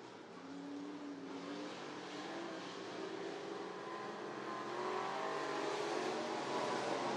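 Several dirt-track stock car engines accelerating, their pitch climbing as the cars come on. The sound grows louder toward the end.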